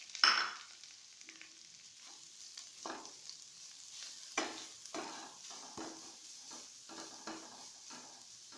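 Grated carrot frying in ghee in a kadai, with a faint steady sizzle, while a spoon stirs and scrapes it round the pan in irregular strokes. A sharp clatter comes just after the start.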